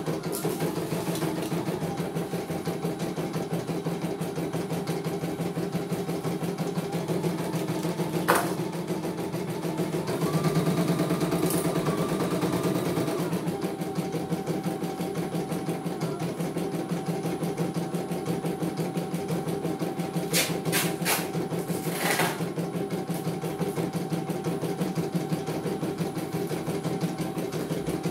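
CNY E900 computerised embroidery machine stitching a test design: rapid, even needle chatter over the motor's steady hum, with a higher whine for a few seconds near the middle. A sharp click about eight seconds in and a few more clicks around twenty seconds in.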